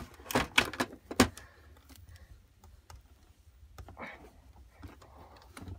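Hands working a toy wrestling ring's ropes and plastic parts: a quick run of sharp clicks and knocks in the first second and a half, then quieter fumbling.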